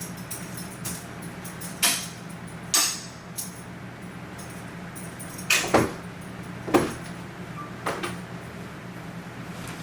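A series of sharp bangs and clatters, about five of them a second or so apart, from household objects being deliberately knocked and banged to make noise, over a steady low hum.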